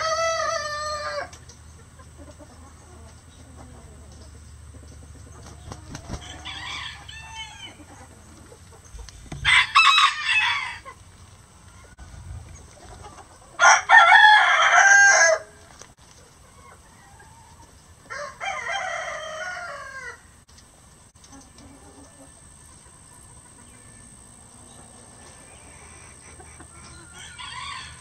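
Roosters crowing one after another, about six crows in all, some close and loud and others faint and distant; the loudest comes about halfway through.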